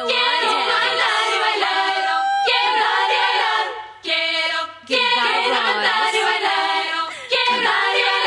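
Pop song sung by a group of girls' voices in harmony, with little beat underneath. The singing breaks off briefly twice, about four seconds in and again just before five seconds.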